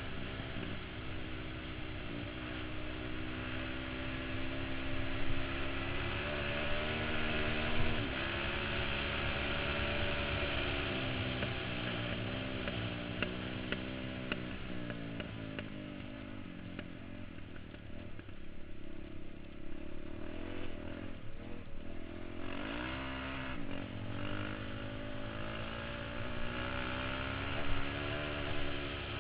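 KTM supermoto motorcycle engine pulling hard up a dirt road. The engine note rises and falls with the throttle and gear changes, and eases off briefly about two-thirds through before picking up again.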